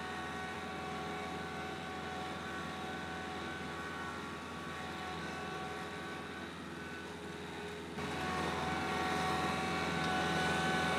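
Kubota LX3310 compact tractor's three-cylinder diesel engine running steadily under load as it pulls a disc harrow through the soil. The drone steps louder about eight seconds in.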